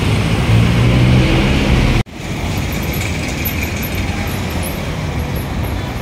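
Road traffic with motorcycle and car engines passing close by, their low engine hum loudest in the first two seconds. The sound breaks off abruptly about two seconds in. Steadier, somewhat quieter city traffic noise follows.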